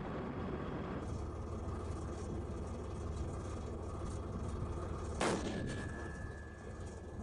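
Tank engine running with a low steady rumble, and one sharp blast about five seconds in: the tank's main gun firing.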